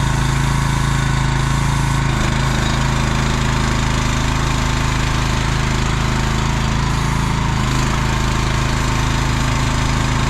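CFG Industrial MX12RX mini excavator's small engine running steadily at a constant speed.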